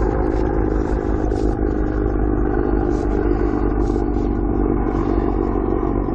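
Airplane flying overhead: a steady engine drone with several held tones over a low rumble, unbroken throughout.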